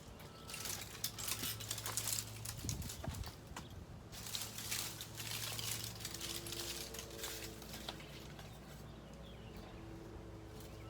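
Cut dead branches crackling and snapping irregularly as they are handled and dragged, busiest over the first eight seconds, over a low steady hum.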